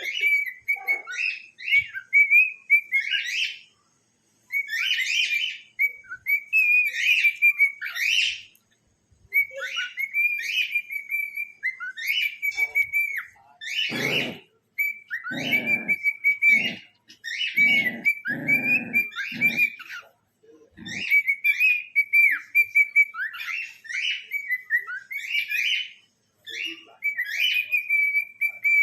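Cockatiel calling over and over: short chirps and whistled notes, many sweeping sharply upward at the end, in runs broken by brief pauses. From about 14 to 21 seconds in, a series of short, lower, noisier sounds comes in under the calls.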